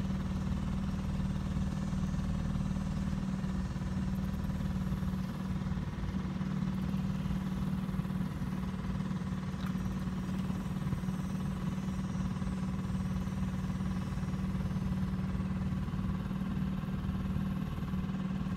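Boat's outboard motor running at a steady speed, an even hum.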